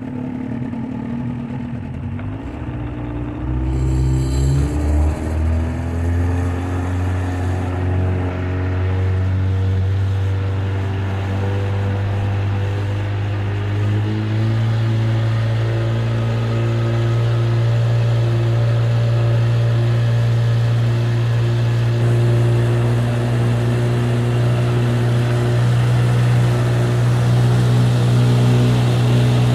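1997 Johnson 25 hp two-stroke outboard motor driving a small aluminum boat: the engine picks up speed over the first several seconds, steps up again about halfway through, then runs steady at speed.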